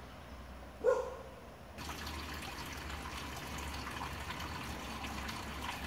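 Steady trickle of spring water running at a stone spring house, starting abruptly about two seconds in. Before it, about a second in, comes a single short hooting call.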